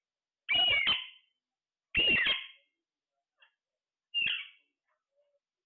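A parrot calling: three short, loud, squawky calls about a second and a half apart, the last one shorter.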